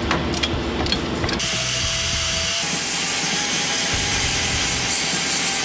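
Narrow belt sander grinding inside an intake manifold port, porting it to match the SU twin carburettors. It starts abruptly about a second and a half in as a loud, steady hiss with a faint whine, after a few clicks.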